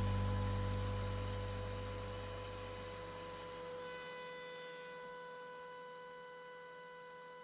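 Background music fading out gradually over a few seconds, leaving a faint steady electrical hum.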